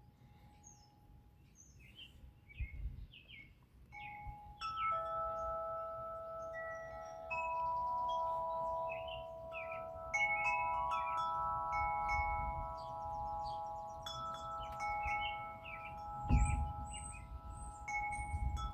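Wind chimes ringing, several long overlapping tones at different pitches, picking up about four seconds in and sounding on together. Birds chirp throughout.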